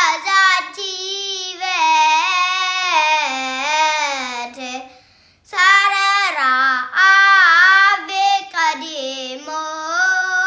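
A young boy chanting an Ethiopian Orthodox mələṭan hymn in Ge'ez, solo and unaccompanied, in long ornamented phrases that slide between notes. He pauses for breath about five seconds in.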